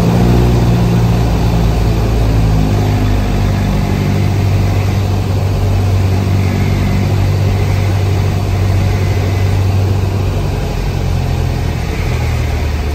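Cessna 172's piston engine and propeller heard from inside the cockpit, running steadily at reduced power on final approach with a deep hum. It gets a little quieter near the end, over the runway threshold.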